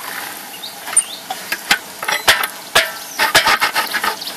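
Irregular metal clicks and knocks as the T-handle screw clamp on a biomass gasifier's lid is worked by hand.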